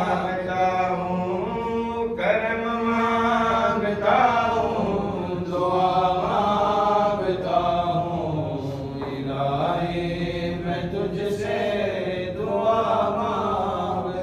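Noha, a Shia mourning lament, chanted in slow melodic phrases.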